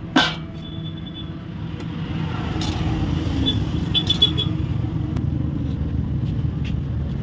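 Steady low engine rumble of a motor vehicle running, swelling slightly about two seconds in. There is a sharp click just after the start and a few light clinks.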